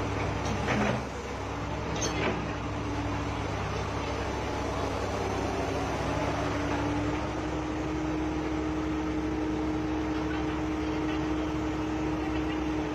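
Komatsu PC200 hydraulic excavator's diesel engine running steadily, with a held hum that rises slightly in pitch about six seconds in. Two brief knocks sound about one and two seconds in.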